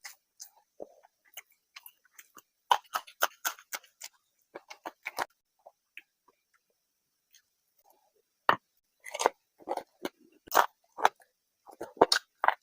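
Close-miked chewing and wet mouth sounds of someone eating, coming in irregular clusters of clicks and smacks with short pauses between.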